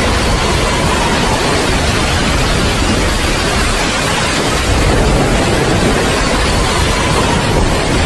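Steady heavy rain: a dense, even hiss of falling water with a deep low rumble underneath.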